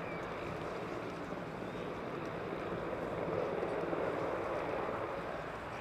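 Steady jet noise of a Saab JAS 39 Gripen C's single Volvo RM12 turbofan as the fighter touches down and rolls out on the runway, swelling a little around three to four seconds in.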